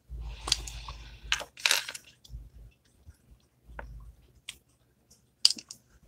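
Handling noise: a few scattered light clicks and taps of hard objects, with a low rumble of movement in the first second.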